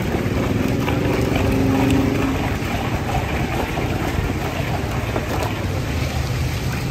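Steady low rumble of street traffic, with a metal paddle scraping and crunching through crushed ice in a large steel pot.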